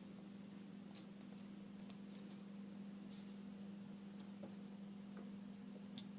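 A pet making short, faint, high-pitched squeaky chirps at a fly it is watching, a few in the first seconds and one near the end, over a steady low hum.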